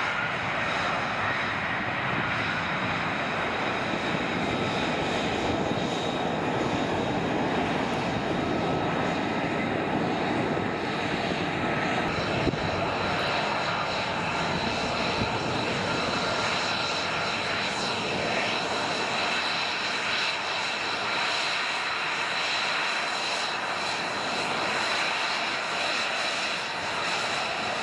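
F-35B Lightning II's jet engine running: a steady jet noise with a high-pitched whine held over it.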